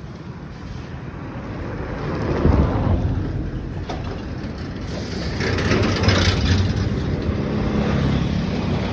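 Road traffic passing close by, with the rush of vehicles swelling about two seconds in and again past the halfway point, and a low engine hum toward the end. Wind buffets the microphone.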